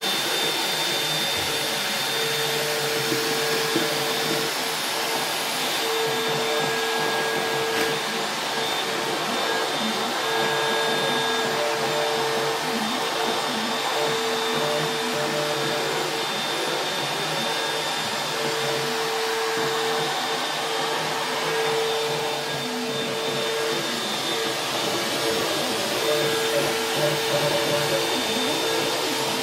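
Trim router serving as the spindle of a CNC router, running steadily as it carves building foam, with the gantry moving it along. A constant motor whine, with a pitched hum that fades in and out.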